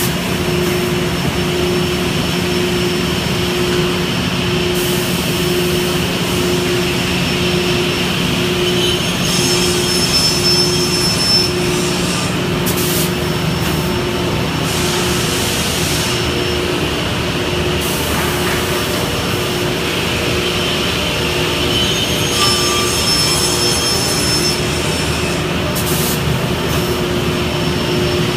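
SCM Sigma 105 panel beam saw running through a cutting cycle: a steady, loud machine drone with a low hum. A tone in it pulses evenly for about the first half, then holds steady, and short bursts of hiss come every few seconds.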